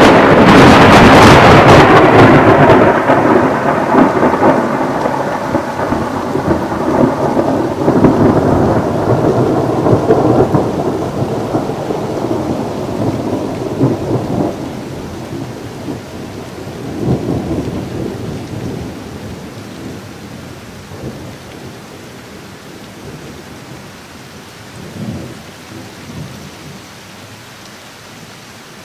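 A close thunderclap that cracks suddenly and loud enough to distort the recording, then rolls on in a long rumble. The rumble swells again several times as it fades over some twenty seconds, with rain falling steadily underneath.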